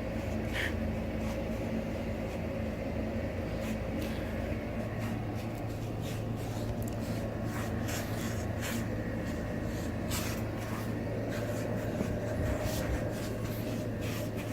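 Steady low machine hum, with scattered light clicks and ticks over it.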